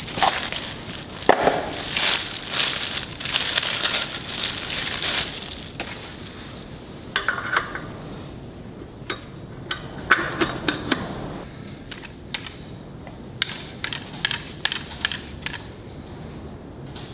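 A new outer wheel bearing's box and wrapping being opened, crinkling for several seconds, then scattered sharp metal clicks and knocks as the bearing is fitted on the truck's steer-axle hub.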